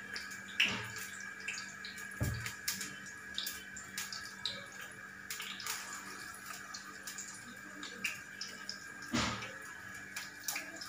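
Besan-battered herb leaves frying in hot mustard oil in a pan: a steady sizzle with scattered small crackles. A few louder knocks come in about half a second in, at about two seconds, and near nine seconds.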